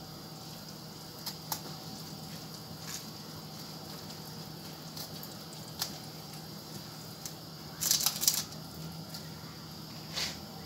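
Hands stuffing onion into the cavity of a raw turkey: faint scattered wet clicks and squishes, with a louder cluster of crackling about eight seconds in and a shorter one near the end.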